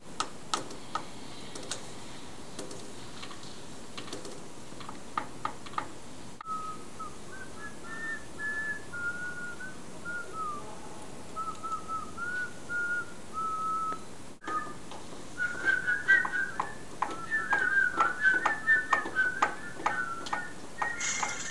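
A person whistling a tune, note by note, starting about six seconds in after a few light taps and clicks. From about fifteen seconds in the whistling gets louder, with rhythmic taps beneath it.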